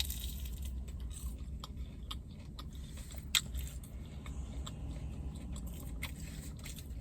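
A person chewing a bite of spicy fried chicken nugget close to the microphone: soft crunches and small wet clicks, with one sharper click a little over three seconds in, over a steady low hum.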